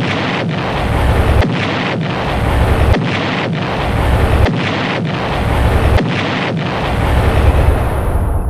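Explosion sound effect: a loud, deep, continuous blast that repeats about every second and a half, as a looped clip does, and starts to fade near the end.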